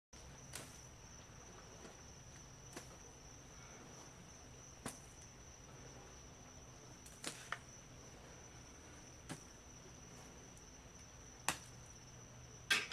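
A cricket trilling steadily at one high pitch, faint, with a few scattered sharp clicks, the loudest near the end.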